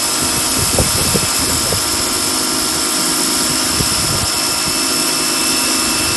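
Powerhouse Platinum Edition electric pressure washer running at full pressure, its turbo nozzle spraying water onto concrete: a loud, steady hiss of spray over a constant motor whine.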